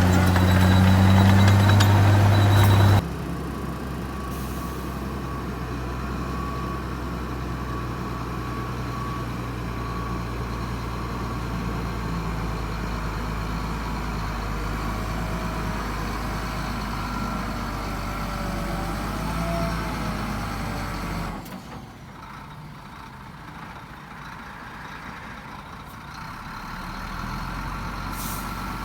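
Heavy diesel earthmoving machinery running: a loud, deep engine drone for the first three seconds, then suddenly a quieter steady engine hum with a faint high whine. It drops lower again about two-thirds of the way through and picks up slightly near the end.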